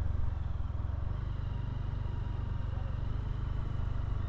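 Motorcycle engine running steadily at low speed with a fast, even putter, heard from the rider's seat.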